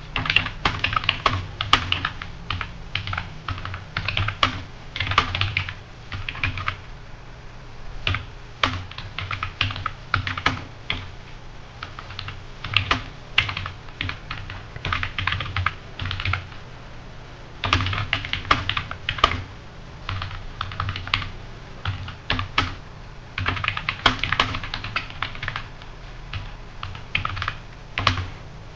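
Computer keyboard being typed on fast, in runs of rapid keystrokes broken every few seconds by short pauses.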